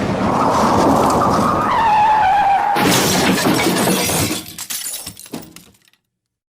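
Car crash sound effect: tyres screech in a skid with a falling squeal, then a sudden crash a little under three seconds in. Shattering glass and debris clatter follow, thinning out and dying away.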